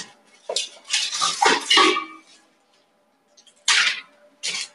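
Clear plastic bag rustling and crinkling in short bursts as it is handled. There is a cluster of bursts in the first two seconds, a pause, and two more near the end.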